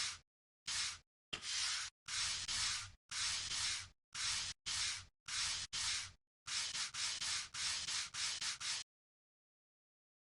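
Rubbing, scrubbing strokes laid in as sound effects: over a dozen short bursts, each cut off sharply into dead silence, getting quicker and choppier a little past halfway, then stopping about nine seconds in.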